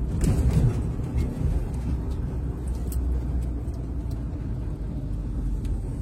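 Vehicle driving along: a steady low engine and road rumble, with a brief louder swell about half a second in.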